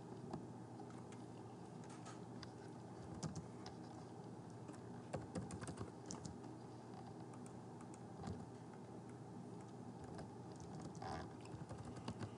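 Faint typing on a computer keyboard: short runs of keystrokes with single clicks scattered between, as offset distances are entered.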